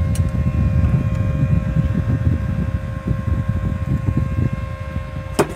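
Steady low rumble with a faint constant hum under it, and a single sharp click near the end.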